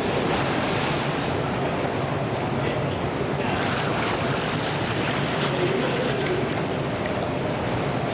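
Steady wash of water noise in an indoor swimming pool, with splashing picking up about three and a half seconds in as a diver in long freediving fins pushes off and swims away underwater.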